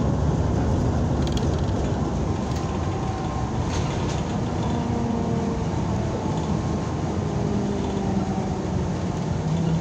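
Cabin noise inside a moving NABI 60-BRT articulated city bus: a steady engine and road rumble with a faint changing whine from the drivetrain, and a short knock about four seconds in.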